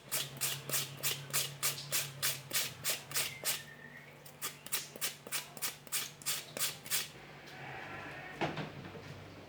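A regular series of sharp taps or knocks, about three a second, that stops after some seven seconds, over a faint steady low hum; one more knock comes near the end.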